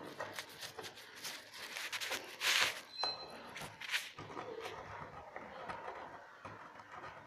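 Irregular scraping and rubbing strokes against the cracked glass back of a phone, with scattered small clicks; the two longest strokes come about two and a half and four seconds in.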